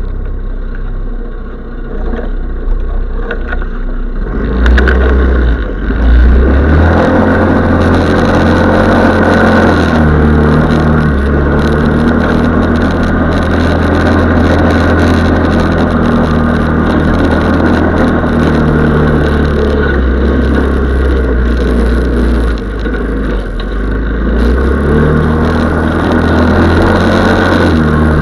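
Dingo SF150L snowmobile engine running. It picks up and grows loud about five seconds in, then runs steadily, eases off briefly near the end and rises again.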